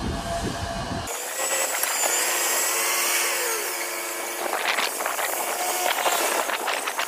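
Heavy trucks' engines running with a whine that shifts in pitch; about a second in the deep rumble drops away abruptly, and a run of knocks and clatters comes in the second half.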